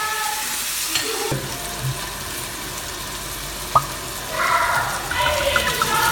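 Diced onions, carrots and celery sizzling in an enamelled pot as a wooden spoon stirs them, with one sharp tap a little before the middle. Near the end red wine is poured into the pot and the sizzle gets louder.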